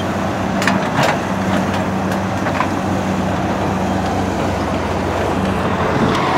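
Cat 320BL hydraulic excavator's diesel engine running steadily while it digs, with a few sharp metallic clanks and knocks from the bucket working the dirt and rock, the loudest about a second in.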